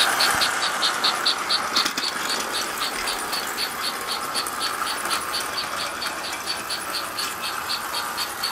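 American Flyer 21168 S-gauge toy steam locomotive running around its track, its chugger giving an even chug about five times a second over the steady whir of the electric motor and wheels on the rails.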